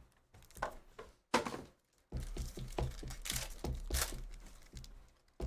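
Plastic wrapping and foil card packs crinkling and tearing as a box of trading cards is opened by hand, with a couple of sharp clicks early on and low handling thuds under the rustling from about two seconds in.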